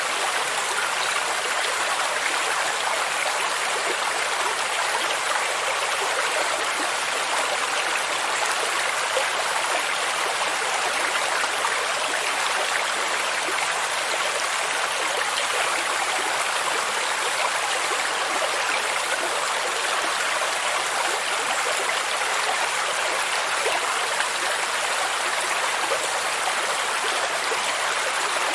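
Stream water rushing and splashing in a steady, unbroken hiss, with no rise or fall.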